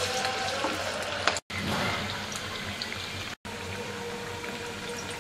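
Hot oil sizzling in a karahi as battered prawn pakoras deep-fry, a steady hiss that cuts out briefly twice.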